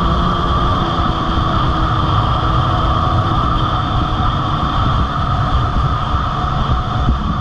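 Dirt bike engine running steadily at cruising speed while riding over gravel, with a heavy low rumble and no change in pace.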